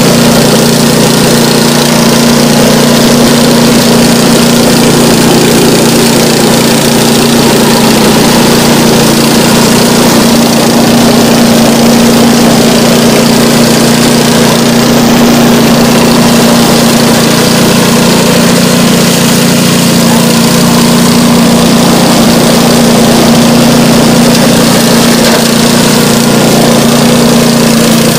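Engine of a remote-controlled tracked lawn mower running steadily at an unchanging pitch while it mows tall grass and brush.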